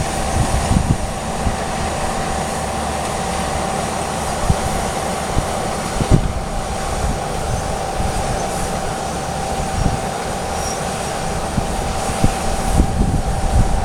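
Steady mechanical rumble of a moving vehicle, with a constant high whine and scattered low knocks.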